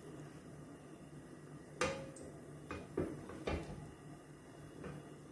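A few light knocks and clinks of kitchenware being handled, four or five over a few seconds, the first with a short ringing tone, over a faint steady hum.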